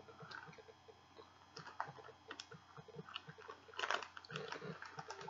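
Faint chewing of a soft gummy fruit snack: irregular small wet mouth clicks, a little louder about four seconds in.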